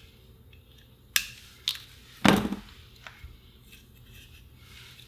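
Flush side cutters snipping the excess leads of a newly fitted electrolytic capacitor on a transistor radio's circuit board: two sharp snips about half a second apart, then a louder clunk about a second later.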